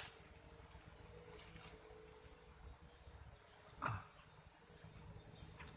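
High-pitched insect chorus in the forest, a steady pulsing trill. One short crack or rustle about four seconds in.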